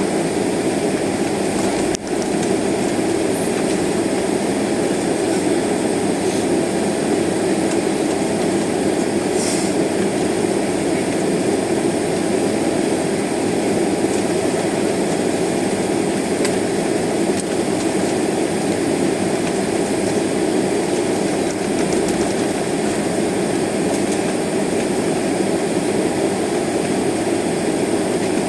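Steady airliner cabin noise while taxiing: jet engines at low thrust and the rumble of the plane rolling over the taxiway, with a brief dip about two seconds in.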